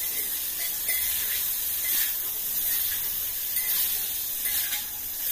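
Chicken pieces sizzling steadily in an aluminium pot over a gas burner, with a spoon scraping against the pot a few times as they are stirred.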